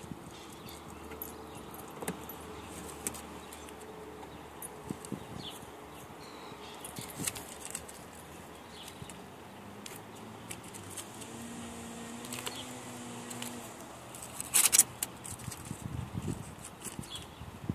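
Blue painter's masking tape being peeled off a plasti-dipped car bumper and scrunched up, in short crackles and rustles, with one louder crackle about three-quarters of the way through.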